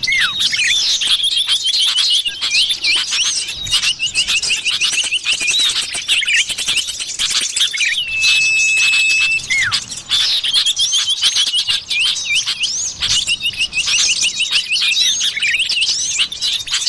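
Common iora (cipoh/sirtu) calls played as a looped bird-lure recording: dense, rapid chirping trills, with a long level whistle that drops at its end about halfway through. The same sequence repeats roughly every nine and a half seconds.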